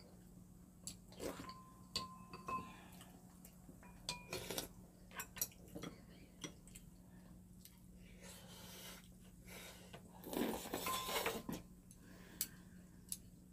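Chopsticks and spoons tapping and clinking on ceramic bowls, a few of the clinks ringing briefly, with chewing and eating noises between. The loudest part is a longer stretch of eating noise about ten seconds in. A faint steady hum runs underneath.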